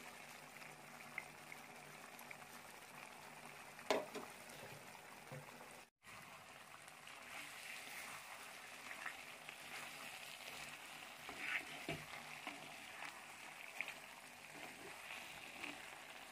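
Thick chicken curry simmering faintly in a clay pot, a soft crackling hiss, with a wooden spatula stirring it in light knocks and scrapes. One sharper knock comes about four seconds in.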